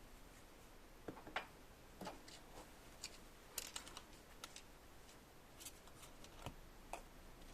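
Near silence with faint, irregular clicks and ticks scattered through it.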